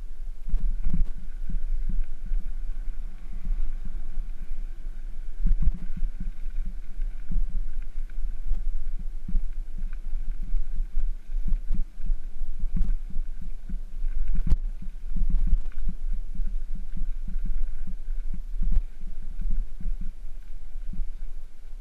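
Bicycle rolling fast over a rough gravel and stone track: a steady low rumble from the tyres and frame, broken by frequent irregular knocks and rattles as it jolts over stones, with one sharp knock about two-thirds of the way through.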